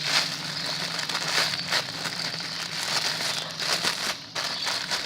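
Crinkling and rustling as squishy toys are handled, likely their plastic wrapping, in irregular crackly bursts.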